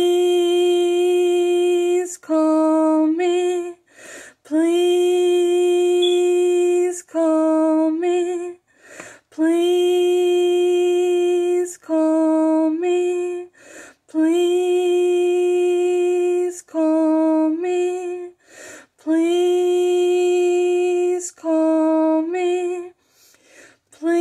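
A woman singing unaccompanied, repeating one short refrain about five times: each time a long held note followed by two shorter ones.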